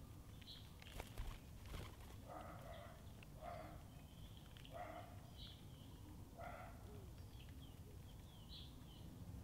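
Faint garden birdsong: small birds giving scattered short high chirps, with four short lower calls in the middle and two light clicks about a second in.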